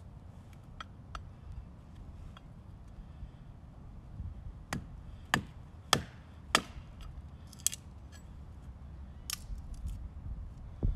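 A Wenger Wolverine large bushcraft knife knocking sharply against wood four times, about half a second apart, a little under halfway in. Lighter clicks and handling rustles come before and after.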